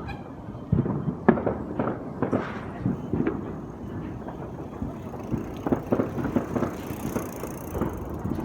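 Fireworks going off: a run of irregular bangs and pops at varying loudness, the sharpest about a second in, with a faint high hiss near the end.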